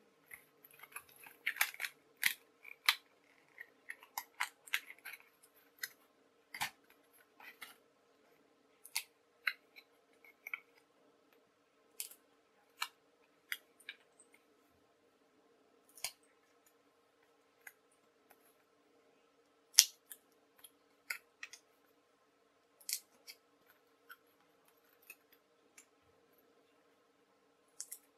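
Stiff card and foam puzzle pieces being handled, pressed out and slotted together by hand: irregular sharp clicks and snaps, with a spell of rustling card in the first few seconds.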